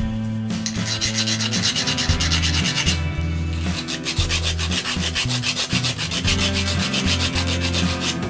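A hand file rasping in quick back-and-forth strokes across the metal housing of a vintage Kluson-style guitar tuner, shaving a little off so the tuners fit side by side on the headstock. The strokes begin about half a second in and ease briefly about three seconds in. Steady low tones run underneath.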